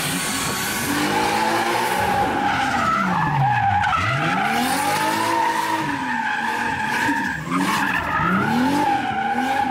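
Drift car sliding in circles: the tyres squeal in a steady high screech while the engine revs rise and fall several times.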